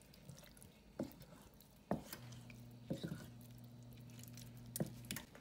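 Wooden spoon stirring a thick, creamy pot pie filling in a stainless steel saucepan: soft squishing with a handful of sharp knocks of the spoon against the pan. A faint steady hum comes in about two seconds in and stops near the end.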